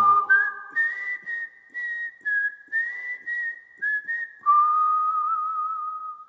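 A person whistling a short tune: several short notes stepping up and down, then a long held lower note with a slight wobble that fades out near the end.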